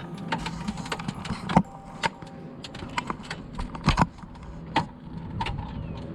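Irregular sharp clicks and knocks, a few of them much louder, over a low steady hum.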